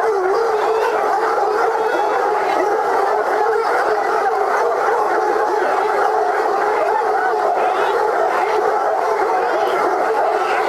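A large pack of French hunting hounds, Anglo-French tricolour hounds, baying and howling together, many voices overlapping into one steady, loud chorus.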